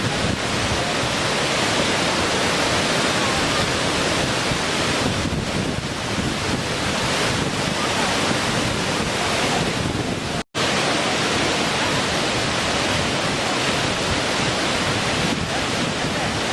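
Small waterfall: a steady, even rush of falling water, cut by a momentary gap of silence about two-thirds of the way through.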